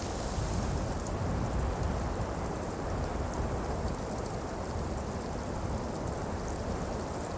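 Hectic snow-falling atmosphere: a steady, dense hiss over a low rumble, with faint scattered ticks above it.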